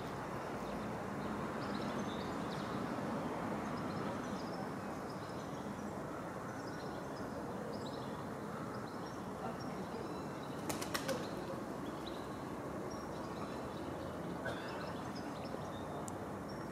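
Steady outdoor background noise with small birds chirping faintly here and there, and a short quick run of sharp clicks or flaps about eleven seconds in.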